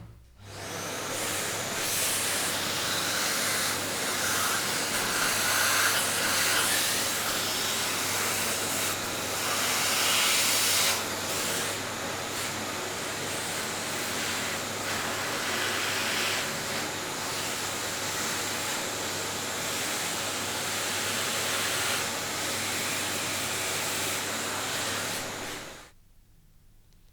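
A motor-driven workshop tool running steadily with a loud hiss and a low hum; it starts just after the beginning and cuts off sharply near the end.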